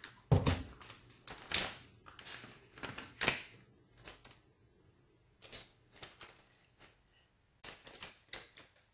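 Irregular clicks, knocks and plastic rustles as a boxed phone is picked up and handled, with its clear plastic outer case being worked off. The loudest knock comes about a third of a second in.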